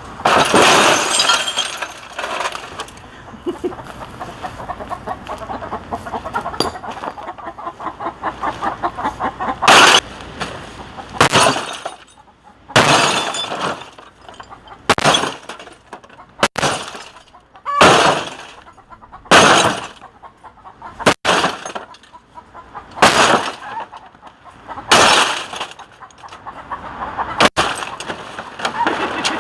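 Sledgehammer blows smashing a CRT television, its plastic housing and glass cracking and shattering. The blows come about every second and a half to two seconds through the latter two-thirds.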